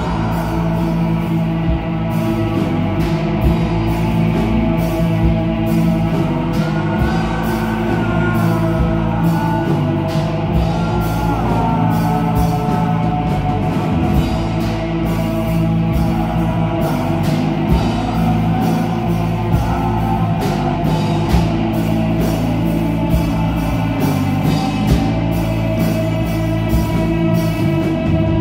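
Live rock band playing loudly: electric guitars, bass guitar and a drum kit keeping a steady beat.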